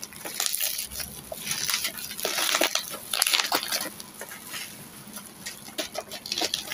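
Plastic bubble wrap rustling and crinkling as it is pulled off and unwrapped by hand, with scattered sharp crackles, busiest in the first half.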